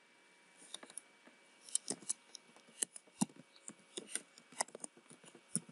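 Typing on a computer keyboard: irregular, quick key clicks, starting about half a second in.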